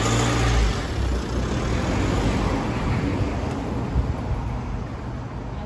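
Mercedes-Benz ML 250's four-cylinder diesel engine running as the SUV pulls past and drives slowly away across paving stones. It is loudest in the first second, then gradually fades as the car moves off.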